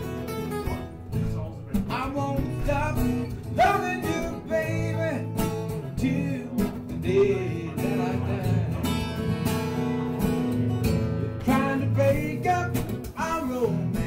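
Acoustic guitar strumming and picking a slow blues tune.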